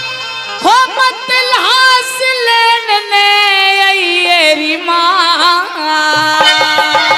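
A woman sings a Haryanvi ragni through a stage microphone and loudspeakers, in ornamented turns followed by long held notes that step slowly downward.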